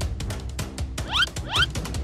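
Background music with a steady beat, with two short rising squeaks close together about halfway through.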